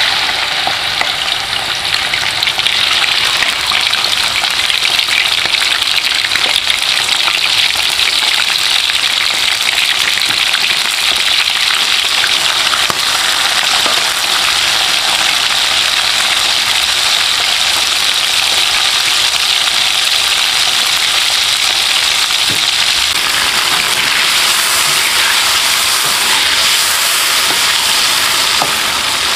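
Peeled shrimp frying in hot cooking oil: a steady, loud sizzle.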